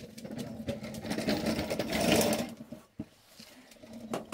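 A fast mechanical rattle, like a small machine running, for about two seconds; it is loudest just past the middle and stops sharply about three seconds in.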